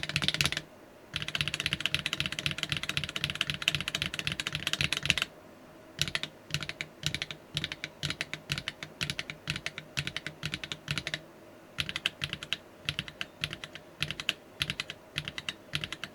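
HMX rail-bottom-out linear mechanical keyboard switches being typed on: a fast, dense run of keystrokes for about five seconds, then slower, separate key presses after a short pause.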